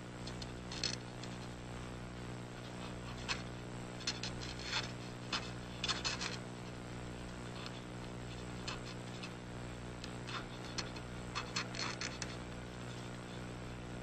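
Polygraph chart recorder pen scratching on the moving chart paper in irregular small clicks, over a steady low electrical hum.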